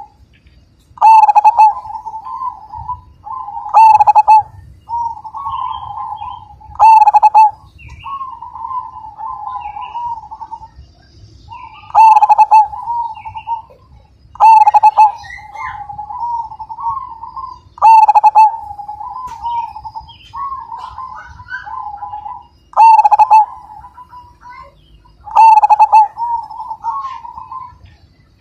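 Zebra dove (perkutut) singing its cooing song over and over: runs of soft rolling coos, each phrase topped with a loud 'kung' note, about eight loud notes in all.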